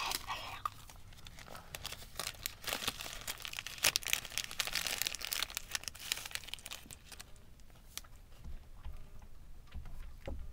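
Crinkling and rustling with many small crackles, densest in the first half and thinning out later, with a few soft low thumps near the end.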